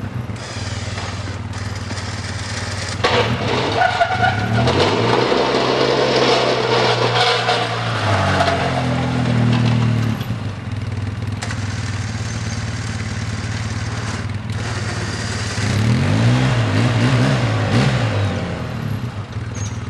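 The engine of a 2008 Polaris Sportsman 700 X2 EFI ATV running and revving up and down repeatedly while it works a snow plow. It is louder, with a rushing noise over the engine, from about three to ten seconds in.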